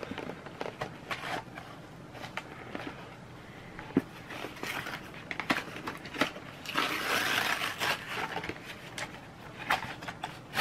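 Objects being handled: scattered light clicks and taps, with a stretch of rustling and crinkling lasting over a second about seven seconds in.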